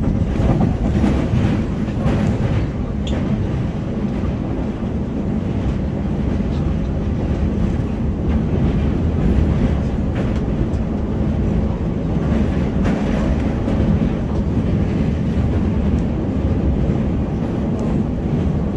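Seoul Subway Line 4 train running at speed, heard from inside the carriage: a steady rumble of wheels on rails, with a few sharp clicks in the first few seconds.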